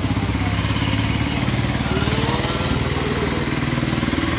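An engine idling with a steady, rapid low pulsing, over the hiss of rain falling on a wet road.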